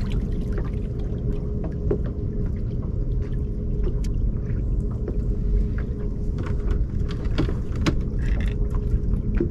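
Low steady rumble of wind and water around a small aluminum fishing boat, with scattered small knocks and clicks.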